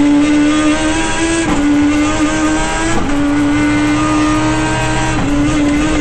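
Racing car engine running hard at high, fairly steady revs, with three brief dips in the sound, about one and a half, three and five seconds in.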